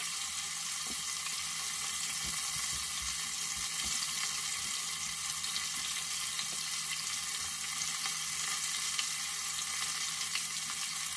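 Pot of hot oil deep-frying breaded chicken, sizzling with a steady hiss and a few faint crackles.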